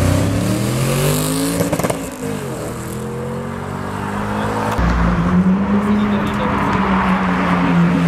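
A black Audi estate car's engine revs up as it accelerates hard away, with a break in the rising pitch about two seconds in, then a quieter rising note as it pulls off. About five seconds in, the sound cuts to a red Ferrari F430's V8 running steadily at low revs as it rolls past close by.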